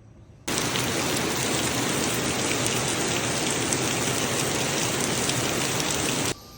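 Steady, loud rush of falling water, starting and stopping abruptly about half a second in and just before the end.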